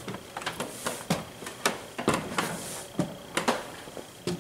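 Footsteps on wooden steps, a string of irregular knocks and thuds several times a second, as someone climbs up.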